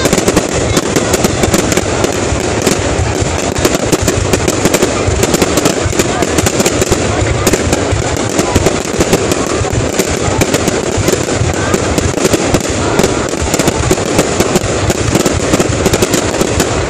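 Aerial fireworks display: a continuous rapid barrage of bangs and crackling from bursting shells, with crowd voices underneath.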